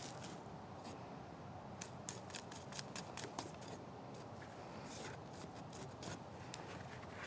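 Scissors snipping in a quick run of sharp cuts, with another snip a few seconds later, as when trimming the stems and roots of freshly harvested ginger.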